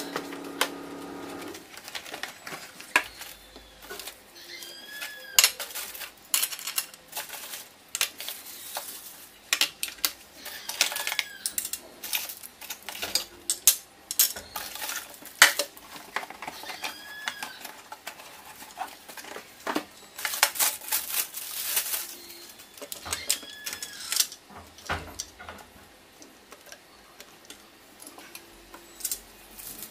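Hookah parts being unpacked and fitted together by hand. Plastic wrapping crinkles in longer rustling bursts, and hard parts click and clink as they are set down on a glass tabletop and pressed into place.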